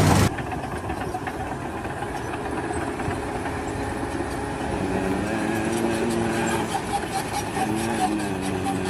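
An engine running steadily, after a loud noise that cuts off suddenly just after the start.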